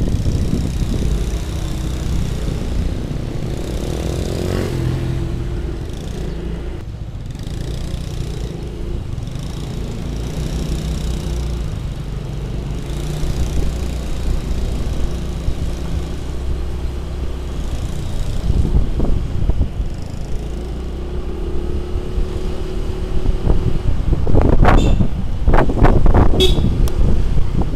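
Motor scooter being ridden along a road: its small engine runs steadily under wind rushing over the microphone, getting louder and rougher near the end.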